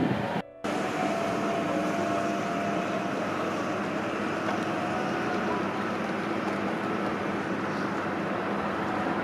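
Steady hum of an idling car, with a few faint held tones; the sound cuts out briefly about half a second in.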